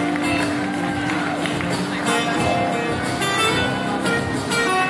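Live band playing an instrumental passage: guitars over keyboard and drums, with one long held note in the first two seconds.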